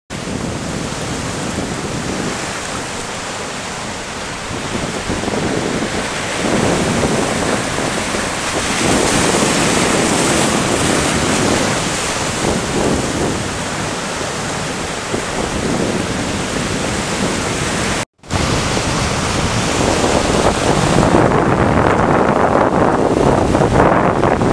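Sea surf breaking over rocks, with wind buffeting the microphone. The noise swells and ebbs several times and drops out for an instant about three-quarters of the way through.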